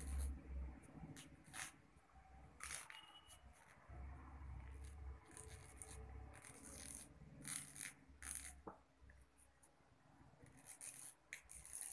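Faint, irregular rustling and scraping of a paper strip being rolled by hand around a thin wooden stick, with a few soft bumps of handling.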